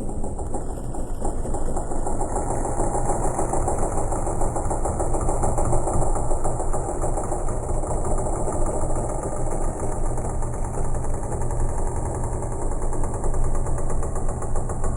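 Big, heavy door opening: a steady, rattling mechanical grind over a low rumble, growing a little louder near the end.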